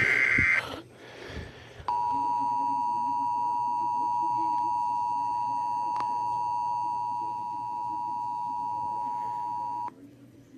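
Emergency Alert System broadcast tones: the last of the SAME digital header bursts, a brief harsh warble, then about two seconds in the EAS two-tone attention signal, held steady for about eight seconds before it cuts off.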